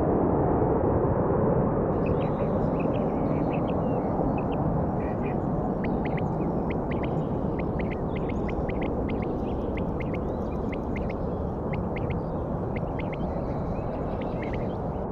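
Steady aircraft engine roar, slowly fading, with short bird chirps starting about two seconds in.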